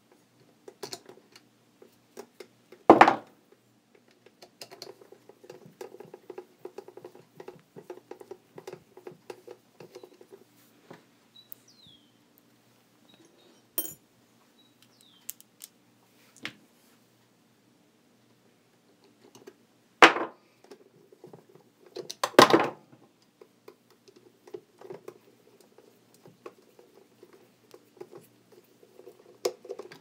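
Screwdriver and hands working the plastic oscillator gearbox onto a table fan's motor housing: scattered small clicks and scrapes of metal and plastic. There are three louder sharp knocks, about three seconds in, around twenty seconds, and again a couple of seconds later.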